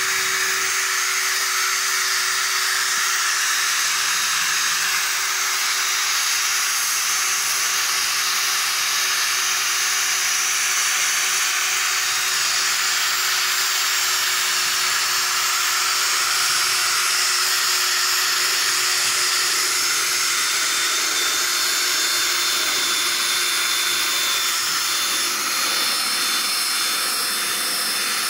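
DeWalt 20V cordless drill running without a break at one steady pitch, its spinning bit pressed into a dog's coat as a massager.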